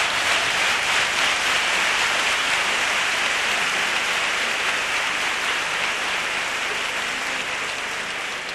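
Theatre audience applauding, a steady, dense ovation that slowly dies away near the end.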